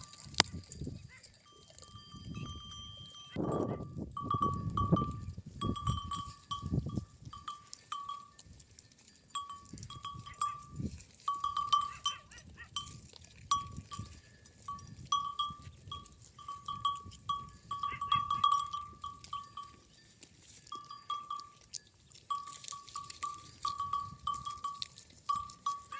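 Sheep bell clanking irregularly as the animal moves, in quick runs of clangs with short pauses between. Louder low animal sounds come about three to seven seconds in.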